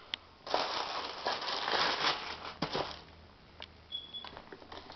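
Rustling and crinkling, with a few light clicks and taps, as football boots and their packaging are handled. The rustle runs for about two and a half seconds, then fades to scattered soft clicks.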